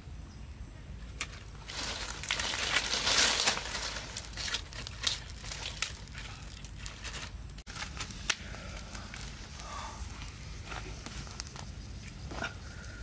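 Dry sticks and leaf litter rustling and snapping as they are handled and fed into a small wood campfire, with scattered sharp crackles; a louder spell of rustling comes about two seconds in.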